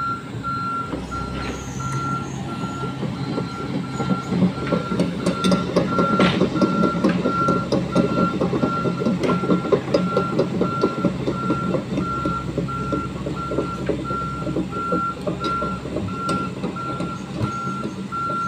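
Heavy machine's backup alarm beeping steadily at one pitch, a little more than once a second, over a diesel engine that works harder for several seconds from about four seconds in.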